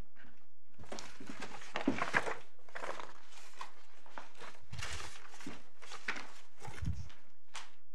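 Paper rustling as pages of court bundles are turned and handled, a string of short rustles with a couple of soft knocks against the desk or microphone, over a steady low electrical hum.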